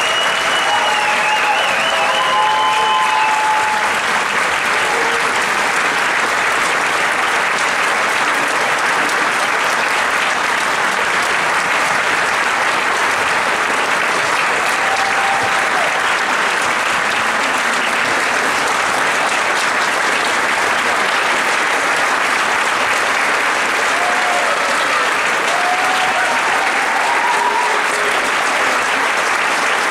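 Audience applauding steadily after a live orchestral and vocal performance. A few voices call out over the clapping near the start and again near the end.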